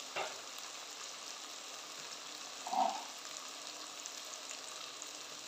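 Tomatoes and green chillies sizzling steadily as they fry in oil in an aluminium pot. There is a short knock near the start and a brief muffled sound about halfway through.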